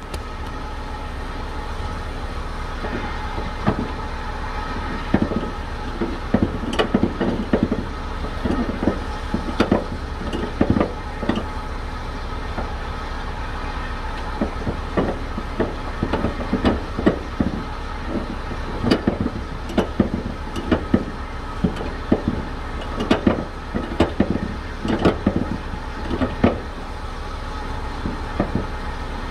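Cargo strap being worked at a flatbed trailer's side rail, with irregular metallic clicks and knocks from the strap hardware in clusters over a steady low hum.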